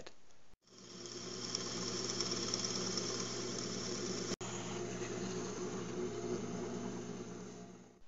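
Drill press running with a 1/2-inch Forstner bit boring into laminated birch plywood: a steady motor hum with hiss. It starts about half a second in, breaks off for an instant about four seconds in, and fades away near the end.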